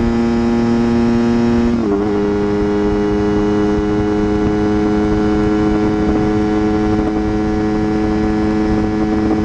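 Honda CBR250RR's parallel-twin engine, fitted with an Akrapovic exhaust, running at steady high revs while riding at speed, with a rushing noise underneath. About two seconds in, the pitch eases down slightly, then holds.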